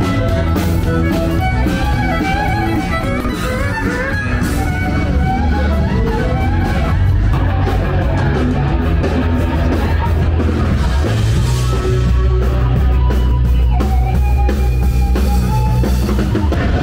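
Rock-style band music with electric guitar, a deep bass line and a drum kit, played loud and continuously.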